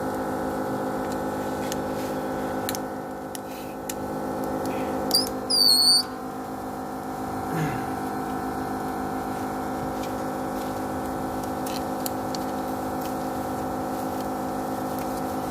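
Steady machine hum from repair-bench equipment, with a shrill electronic beep about five seconds in, a short chirp then a held tone lasting under a second.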